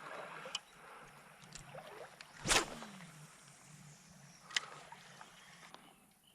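Shallow creek water with a single splash about two and a half seconds in, and a sharp click a couple of seconds later.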